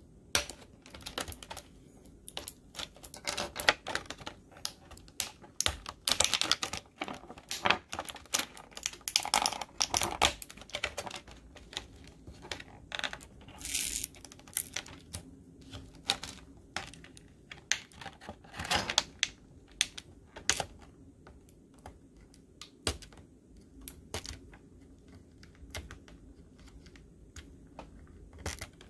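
Small hard plastic action-figure accessories clicking and tapping against each other and the fingers as they are handled, in quick irregular clicks, with a thin clear plastic bag crinkling now and then. The clicks thin out toward the end.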